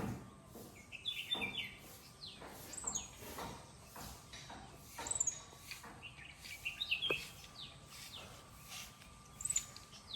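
Birds chirping: short, scattered high calls and quick down-sweeping notes from several birds, with no steady rhythm.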